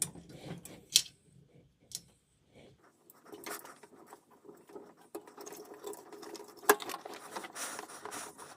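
New snubber pads (base pads) being fitted into place on the base of a Kenmore 70 series washing machine: a few sharp clicks, and from about three seconds in scratchy rubbing and scraping, with the loudest click a little over halfway through. The worn-out old pad was the cause of the machine shaking violently on spin.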